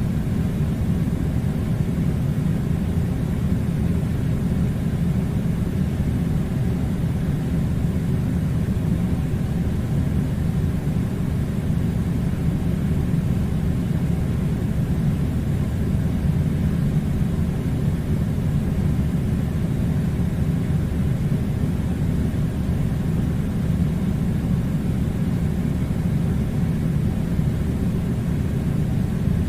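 Air conditioner running with a steady, low rumbling hum that does not change.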